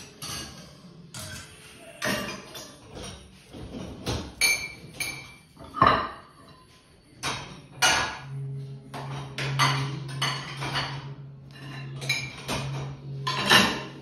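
Crockery and cutlery clinking and knocking in a run of separate clatters as dishes are handled and a dishwasher's racks are worked. A low steady hum starts about eight seconds in.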